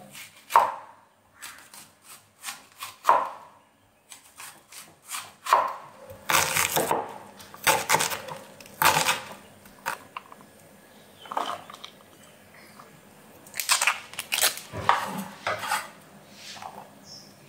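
Steel cleaver chopping onion on a wooden cutting board: sharp, crisp chops of the blade through the onion onto the board, coming in irregular bursts with short pauses between them.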